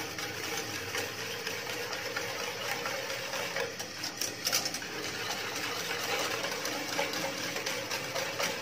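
Whisk beaten rapidly round an aluminium saucepan of milk, sugar and cocoa powder: a steady, fast rattle of the whisk against the pan as the powder is mixed in.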